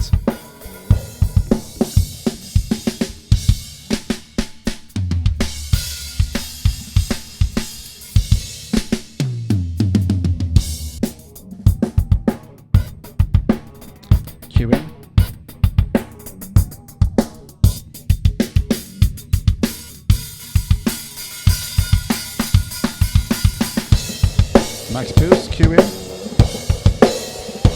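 Isolated live rock drum-kit track (kick, snare, hi-hat and cymbals) playing a steady beat, heard through a Calrec PQ1549-style equaliser with one band set to cut.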